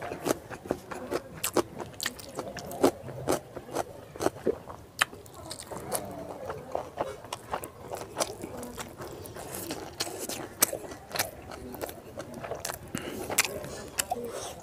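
Close-up chewing and mouth sounds of someone eating pork curry and rice by hand: wet smacks and many irregular sharp clicks, several a second.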